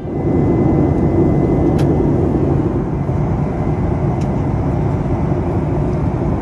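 Jet airliner cabin noise in flight: a steady, deep rushing of engine and airflow noise.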